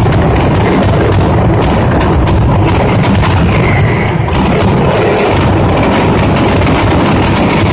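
Mascletà firecrackers (masclets) exploding in a dense, unbroken barrage, the bangs so close together that they run into one loud, continuous din.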